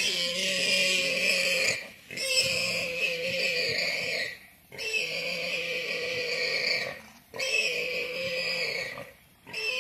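Warthog squealing in distress while a leopard holds it by the throat. Four long, high screams of about two seconds each come with short pauses between them.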